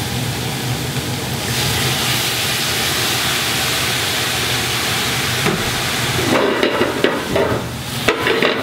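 Brandy hitting a hot stainless stockpot of browned mushrooms and vegetables, hissing and sizzling as it deglazes the pan. About five and a half seconds in the sound turns rougher and louder, with crackling and pan knocks, as the brandy catches fire and flares up in a flambé.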